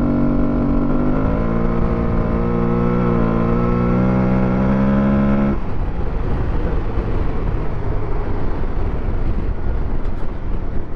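Aprilia Tuareg 660's parallel-twin engine accelerating hard, its deep air-intake induction noise climbing in pitch. About five and a half seconds in the throttle shuts, and the engine note falls away to wind rush and tyre noise on the dirt.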